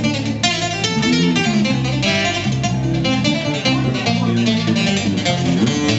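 Acoustic guitar music played live, a fast picked instrumental passage with no singing.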